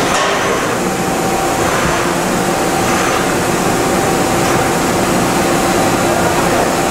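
Okuma MC-50H CNC horizontal machining center running a dry run with flood coolant on: a steady mechanical hum with a few held tones over an even hiss.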